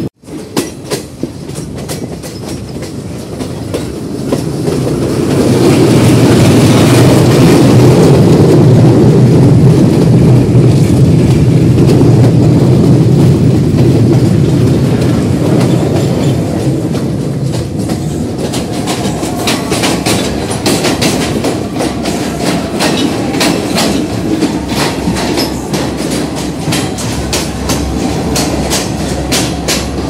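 Passenger train running, heard from beside the moving carriages: a heavy, steady rumble of wheels on track. About halfway through, a fast, regular clickety-clack of wheels over rail joints becomes clear.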